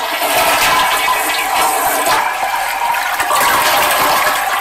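Toilet flush: a loud, steady rush of water that begins to fade near the end.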